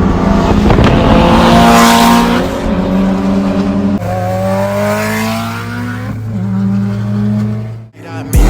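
Car engine accelerating hard. Its pitch climbs, drops sharply about four seconds in, climbs again and dips once more, like shifts through the gears, before it cuts off suddenly near the end.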